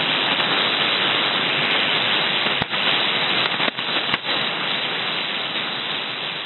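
Shortwave single-sideband receiver hiss on an empty 7770 kHz upper-sideband channel: steady static squeezed into a narrow voice band. A few sharp clicks come between about two and four seconds in, and the hiss grows slowly quieter near the end.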